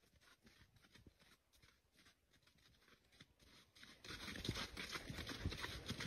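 Footsteps crunching and rustling through dry leaf litter and twigs on a woodland floor, faint at first and louder from about four seconds in.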